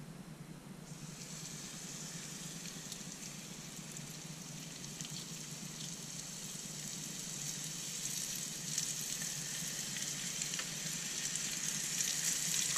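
Floured brook trout fillets sizzling in hot canola oil in a nonstick frying pan, with scattered crackles. The hiss starts about a second in as the first fillet goes in, and grows louder once the second fillet is added. A steady low hum runs underneath.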